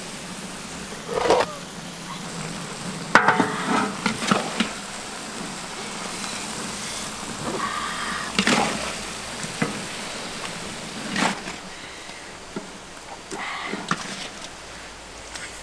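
Catfish sizzling in oil in a large wok, with a metal spatula scraping and knocking against the wok and tray now and then as pieces are lifted out.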